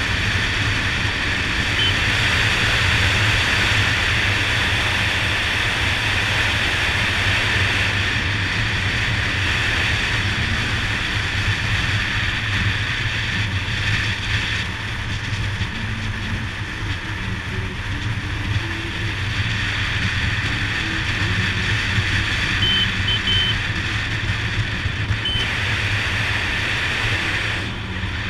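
Honda Dazzler motorcycle riding at speed: steady wind rush on the camera's microphone over the engine and tyre noise. The texture shifts slightly about halfway through.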